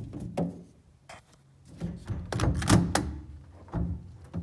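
A series of knocks and thunks from handling, densest in a cluster about two to three seconds in.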